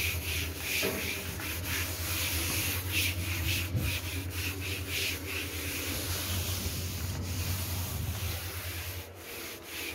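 Rubber-gloved hand scrubbing a sanded RV wall panel with TSP cleaning solution: quick back-and-forth rubbing strokes, about two or three a second, easing off near the end. A steady low hum runs underneath.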